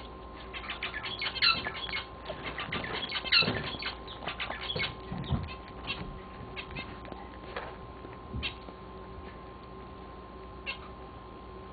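Pet rabbit chewing a piece of banana close up: quick, wet, clicky chewing and smacking, dense for the first five seconds or so, then thinning to a few scattered clicks.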